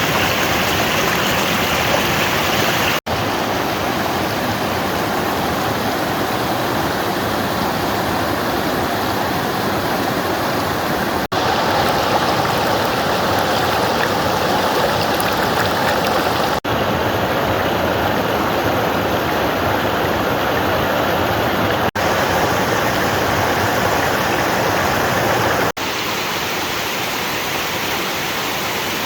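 Mountain valley stream rushing steadily over rocks. The sound breaks off for an instant about five times, as the recording is cut.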